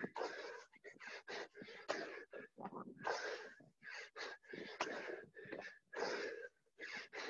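Heavy, rapid breathing from exertion during burpees: quick noisy breaths about twice a second, with a few sharp knocks.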